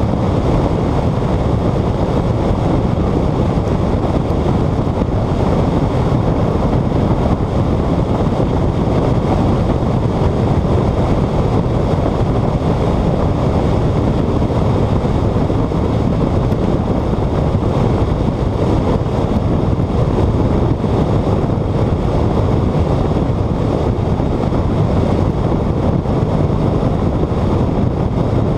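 Steady rush of wind buffeting the microphone of a hood-mounted camera on a car at high speed, with the car's road and engine noise underneath.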